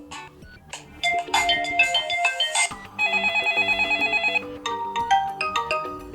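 Lenovo K6 smartphone ringtones playing: electronic melodies of short pitched notes, with a rapid warbling trill from about three seconds in that lasts about a second and a half.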